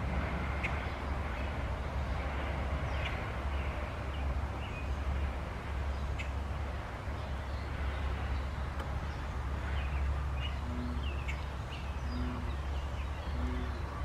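Outdoor ambience: a steady low rumble with scattered short bird chirps, and from about ten seconds in a low call repeated roughly once a second.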